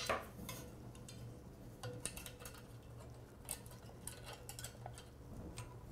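Steel worm-drive hose clamp being fitted around a sensor cover and tightened with a nut driver: light, irregular metallic clicks and ticks of the band and screw, a few sharper ones among them.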